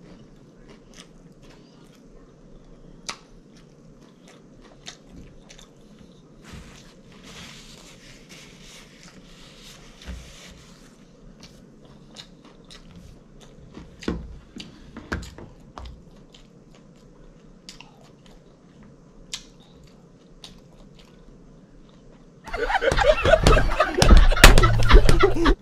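Close-miked chewing of a catfish sandwich: soft wet mouth clicks with a few louder crunches. About three seconds before the end, a sudden, much louder burst of sound cuts in and runs to the end.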